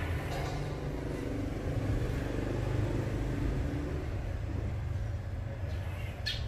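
Electric Traxxas TRX-6 rock crawler driving: a steady low rumble of motor and drivetrain, with a faint whine in the first half and a short knock near the end.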